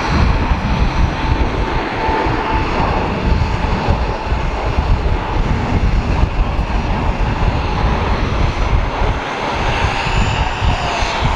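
A twin-engine jet airliner's turbofan engines at takeoff thrust as it rolls, lifts off and climbs away: a loud, continuous rumble.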